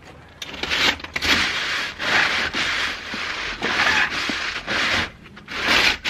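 A round chimney brush on a flexible rod scraping up and down inside a stainless steel stove pipe, scrubbing soot and creosote off the walls: a series of harsh scraping strokes, about one a second.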